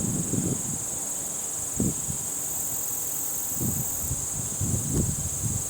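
Steady, high-pitched chorus of insects chirring, with a second, even higher insect joining in for about two seconds midway. Soft low rustles and a light knock sit underneath.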